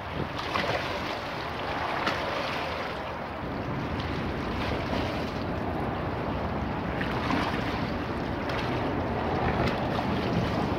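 Choppy river water sloshing and splashing against granite embankment steps, in irregular surges with a few sharper splashes. Gusty wind buffets the microphone.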